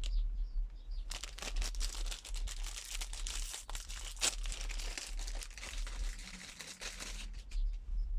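Plastic packaging crinkling and crackling as it is handled, most densely from about a second in until near the end.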